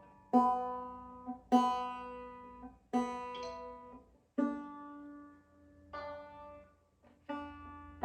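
Ortega Falcon banjo strings plucked one at a time, about six notes at roughly one-second intervals, each ringing and fading. The same notes come back again and again, as when a freshly strung banjo is being tuned by ear.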